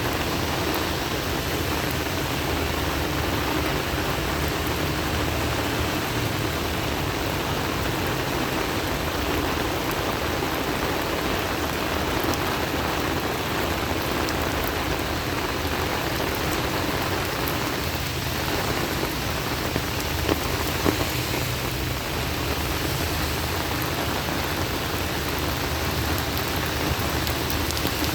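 Heavy rain falling steadily, a dense even hiss of drops on hard surfaces, with a couple of louder drop taps about twenty seconds in.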